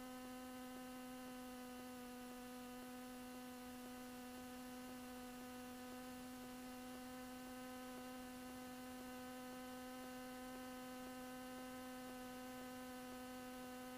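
Faint, steady electrical hum carried on the aircraft's radio/intercom audio feed: one low tone with a row of higher overtones, unchanging throughout.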